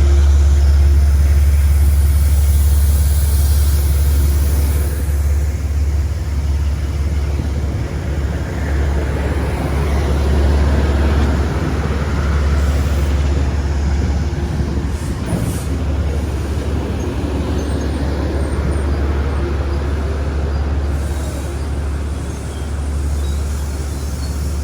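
Metro-North commuter train running at a station: a steady deep drone under a broad rushing noise, with a couple of faint clicks about fifteen seconds in.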